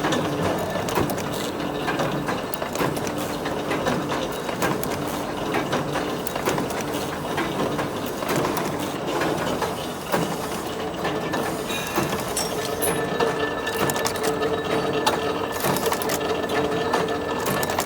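Chain bending and welding machine running: a dense, rapid mechanical clatter of clicks over a steady hum, with a higher steady tone joining a little past halfway.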